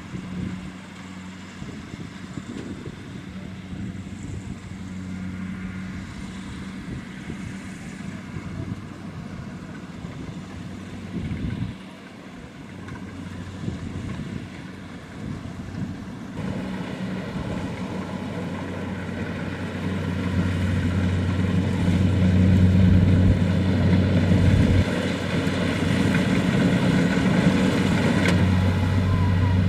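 Kubota DC-70 Plus combine harvester running steadily with a low engine hum. It grows louder about halfway through, when a higher machine whine joins in, and louder again a few seconds later.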